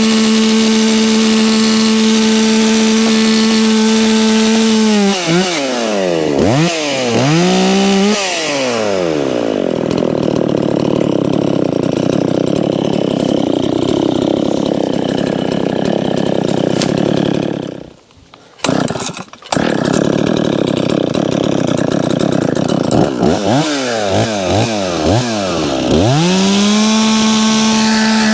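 Dolmar 510 two-stroke chainsaw held at a steady high full-throttle note, then revved down and up. For several seconds it runs with a duller, noisier sound, as when cutting into wood, and it breaks off briefly twice past halfway. After a few more quick blips of the throttle it is back at the steady high note near the end.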